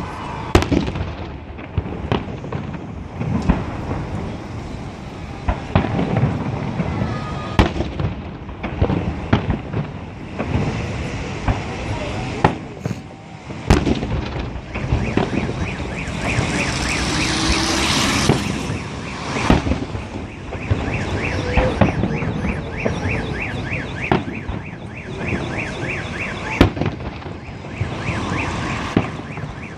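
Festive fireworks salute going off in repeated sharp bangs and crackling bursts. From about halfway through, a car alarm's pulsing electronic tone sounds along with the bangs.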